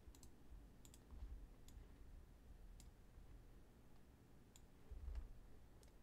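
Faint, scattered computer mouse clicks as code blocks are dragged and dropped, over near-silent room tone, with two soft low bumps about a second in and near the end.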